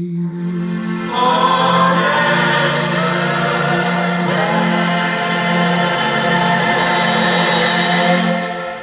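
Background music with choral singing over a low held note, swelling about a second in and fading out near the end.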